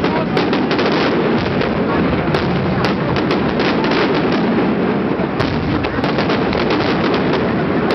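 Fireworks going off in quick succession: a dense, continuous crackle with many sharp cracks and bangs.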